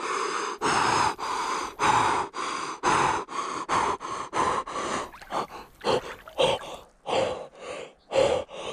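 A man gasping hard in ice-cold pond water: the involuntary cold-shock breathing of sudden immersion. About two deep breaths a second at first, turning into quicker, shorter gasps about five seconds in.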